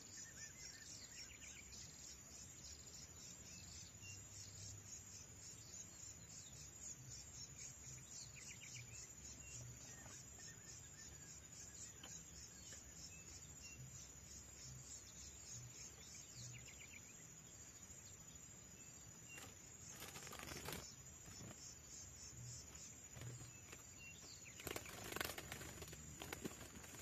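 Near silence with a few faint bird chirps, then near the end a wild brown curió (chestnut-bellied seed finch) flutters its wings as it lands on and clings to the trap cage, wings brushing the bars.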